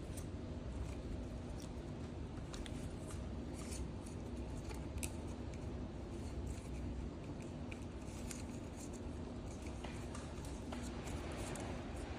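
Scattered light clicks and ticks of hand work on small parts or tools, over a steady low hum.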